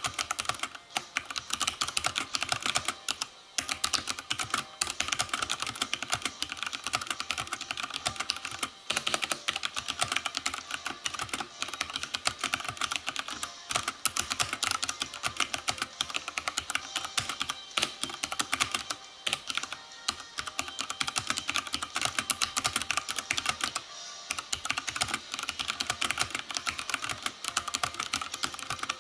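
Fast, continuous typing on a Gramr mechanical keyboard with Cherry MX Brown switches: a dense clatter of keystrokes, broken by a few brief pauses.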